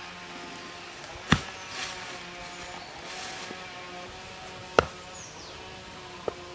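Three sharp knocks, the first two loud and the last weaker, a second or more apart, over a steady outdoor background with a faint humming drone.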